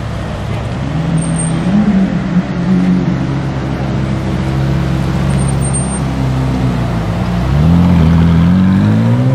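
Lamborghini Aventador LP750-4 SuperVeloce's naturally aspirated V12 through its factory race exhaust, running at low revs as the car rolls along, with a short rise in pitch about two seconds in. Near the end it accelerates, the engine note climbing steadily in pitch.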